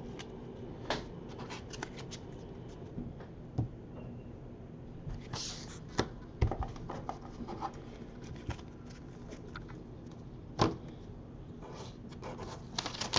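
Hands handling small objects on a tabletop: scattered light clicks, taps and short rustles over a steady low hum, with the sharpest knocks about six and ten and a half seconds in.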